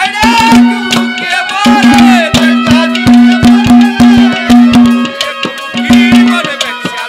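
Haryanvi ragni folk ensemble playing an instrumental passage: fast hand-drum strokes over a sustained low note, with a melody line gliding above.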